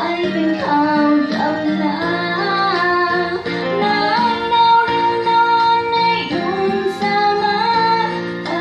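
A woman singing a Thai song into a handheld microphone over an instrumental backing, holding one long note about halfway through.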